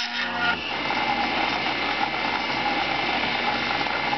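Home-built CNC coil winder running, its spindle turning the bobbin and its table traversing as it winds Litz wire: a steady mechanical whir, with a steady whine that sets in about half a second in.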